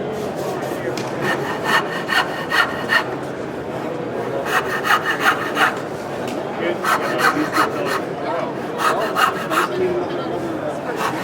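Hand saw cutting dovetails in a wooden board, in short runs of about four to six quick strokes with pauses between them.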